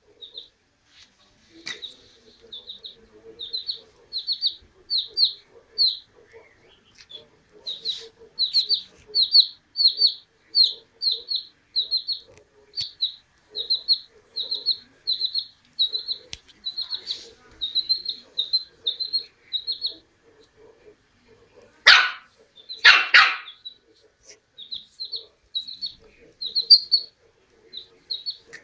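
A chick peeping over and over, short even high peeps about two a second. Two loud puppy barks come close together about three quarters of the way through.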